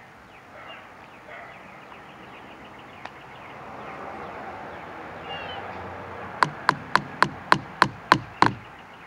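Eight sharp, evenly spaced knocks, about three a second, with faint bird chirps in the background.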